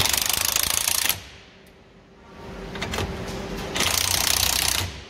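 Cordless impact wrench hammering on a coil-spring compressor bolt through a long extension, in two bursts of about a second each, one at the start and one near the end: the strut's coil spring is being compressed.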